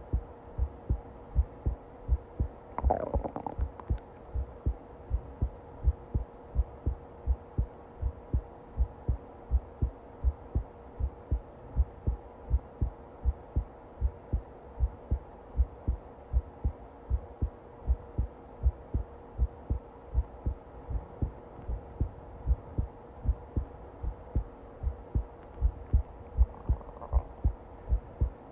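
Human heartbeat, a steady, even rhythm of low thumps over a constant hum. A brief scratchy noise about three seconds in and a fainter one near the end sit over the beats.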